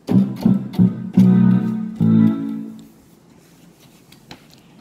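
Electronic keyboard playing a short run of notes, a few quick ones and then two longer held ones, dying away about three seconds in.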